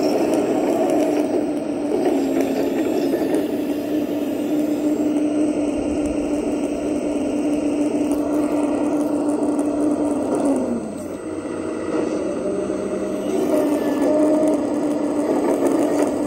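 Small electric motor of a radio-controlled model machine running with a steady whine over mechanical noise. About two-thirds through, its pitch sags and stays low for about three seconds, as under load, then comes back up.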